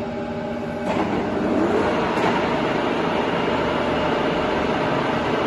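Sachman bed milling machine's universal-head spindle drive running unloaded with a steady gear hum, then shifted up about a second in and spinning up, with a brief rising whine, to a louder steady run at its top speed of 2000 rpm. It runs without any abnormal gear noise.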